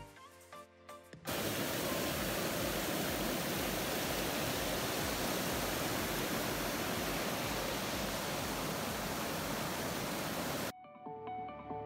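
Loud, steady rushing noise spread evenly from low to high pitch. It cuts in abruptly about a second in and cuts off just as abruptly near the end, with background music on either side.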